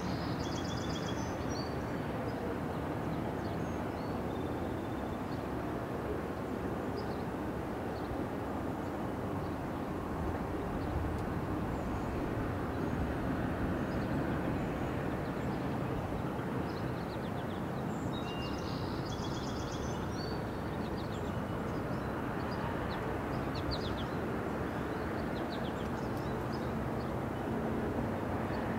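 Steady low rumble of a diesel freight locomotive and its train creeping slowly toward the camera at a distance. Birds chirp briefly near the start and again about two-thirds of the way through.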